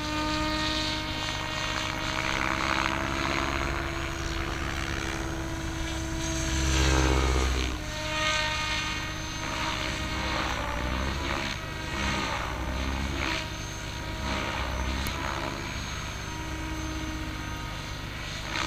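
MSH Protos Max V2 electric RC helicopter in flight: its motor and drivetrain whine and its rotor blades sound continuously. The pitch shifts as it manoeuvres, and a louder surge with a rising whine comes about seven seconds in.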